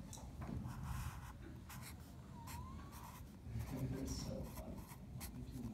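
Sharpie felt-tip marker writing on paper: faint, irregular scratches of pen strokes as an arrow and letters are drawn, with one short squeak of the tip about two and a half seconds in.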